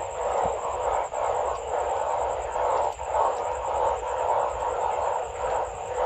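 A loud chorus of many อึ่งอ่าง (Asian narrow-mouthed frogs) calling at once, their voices merging into a dense, steady, pulsing drone. This is a breeding chorus after heavy rain.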